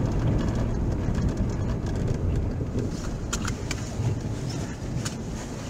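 Car cabin road noise from a car driving on a snowy road: a steady low rumble of tyres and engine that eases off gradually, with a few light clicks around the middle and near the end.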